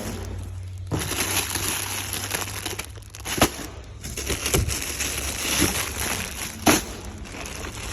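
Packaging crinkling and rustling as products are handled, with two sharp knocks, one near the middle and one near the end.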